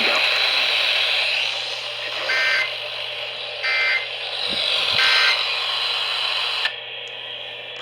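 NOAA Weather Radio end-of-message signal: three short bursts of warbling two-tone SAME data, about a second and a half apart, over steady radio static. The static drops away suddenly near the end as the transmission closes.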